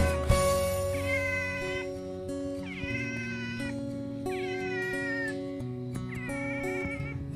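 A cat meowing four times, about a second and a half apart, each call under a second long and some falling in pitch.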